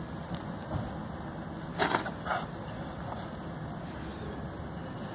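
Small fire of twigs and leaves with a steady low hiss, and a couple of sharp wood snaps about two seconds in.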